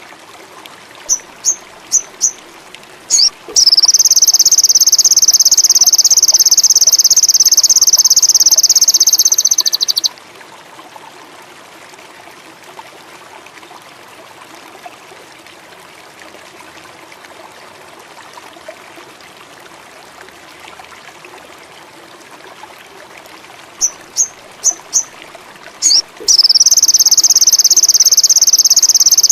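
Recorded songbird call, looped: four quick high chirps, then a loud, high trill of about six seconds. The same sequence starts again near the end. Between the calls there is a faint steady hiss like running water.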